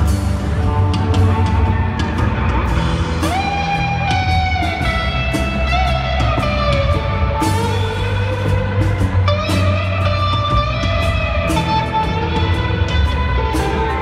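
Live band playing an instrumental passage: guitars over bass and drums, with a sustained melody line that slides between notes above them.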